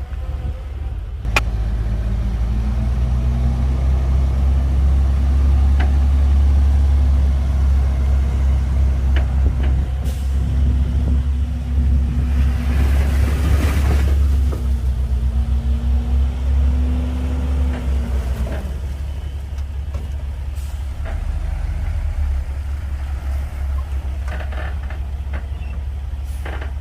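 Diesel engine of a Komatsu D58P bulldozer working under load with a heavy, low rumble. It picks up about a second in and eases off about two-thirds of the way through. There is a brief hissing rush in the middle and a few sharp knocks.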